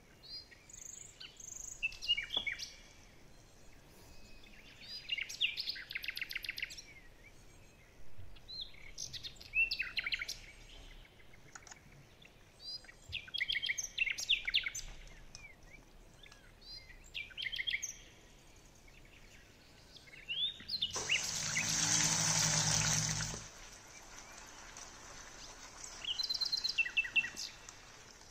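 Small birds singing in short chirping phrases that repeat every few seconds. A little past two thirds of the way through, a louder noisy burst with a low hum in it lasts about two and a half seconds.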